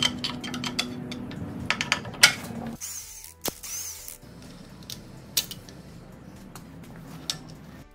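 About three seconds of steady hum with scattered clicks. Then the sound changes abruptly to short whirring bursts and clicks as a cordless impact driver backs out the 10 mm timing chain tensioner bolts on a Toyota 1ZZ-FE engine.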